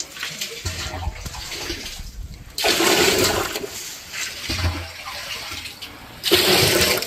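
Water gushing and splashing in loud surges, about two and a half seconds in and again near the end, with quieter sloshing between them.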